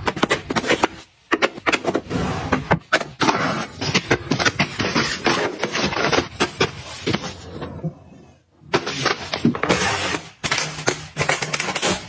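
Hands handling and arranging small items: a dense run of clicks, taps and rustling, broken by brief pauses about a second in and about eight seconds in.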